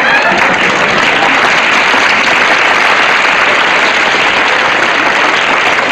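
Sitcom studio audience applauding, a dense, steady clapping that follows a punchline.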